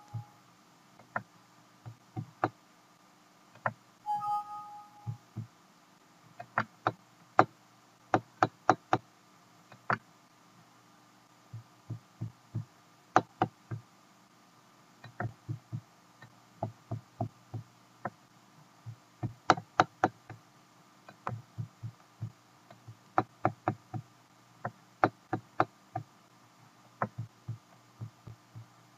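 Computer mouse clicks picked up by the microphone, coming in quick clusters of two to five through most of the stretch. About four seconds in, a short two-note Windows alert chime sounds, and a faint steady hum runs underneath.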